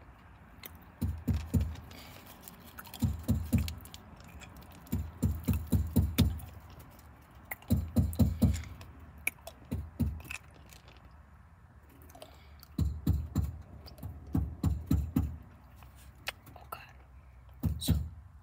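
Close-up mouth sounds of a hard Ricola lemon mint cough drop being sucked and moved around against the teeth. The quick clacks and thuds come in about eight short spells, a second or two apart.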